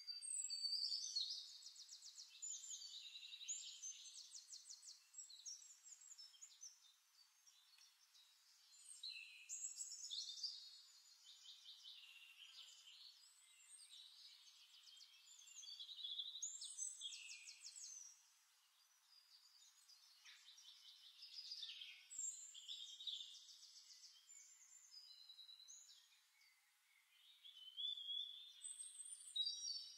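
Faint birdsong: phrases of high, fast trills and chirps, each lasting a few seconds and coming back every several seconds.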